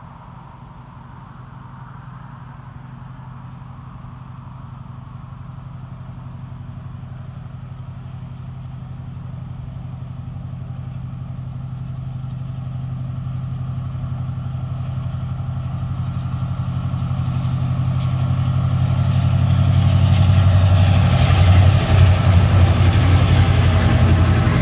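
Two Class 68 diesel locomotives running in tandem, their engines a steady low drone that grows louder as they approach. In the last few seconds wheel and rail noise rises sharply as they draw level.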